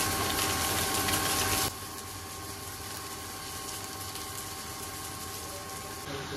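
A steady machine hum with hiss and two steady tones that cuts off abruptly about a second and a half in, leaving only a faint even hiss.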